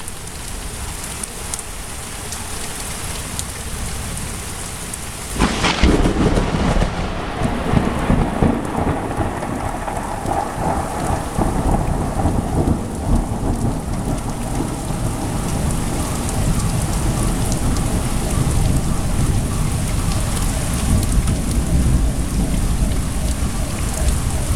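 Thunderstorm with steady rain and a sharp thunderclap about five seconds in that rolls into a long, low rumble.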